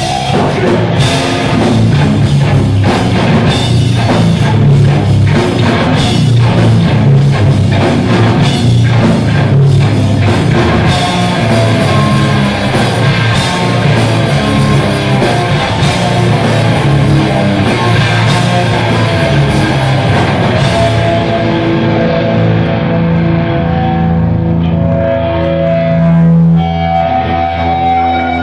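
Hardcore metal band playing live, loud: distorted electric guitars, bass and drum kit pounding. About 21 seconds in the drums and cymbals drop out and the guitars and bass ring on with long held notes.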